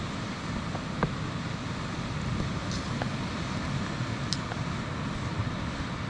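Steady wind rumble on the microphone, with a few sharp clicks or knocks about one, three and four seconds in.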